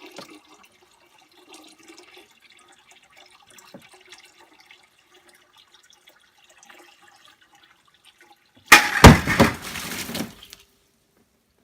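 Water trickling faintly as it is poured slowly into a hanging plastic bucket, then about nine seconds in the 3D-printed chain holding the bucket snaps: a sudden loud crash and splash of water lasting about two seconds as the loaded bucket drops and water spills out.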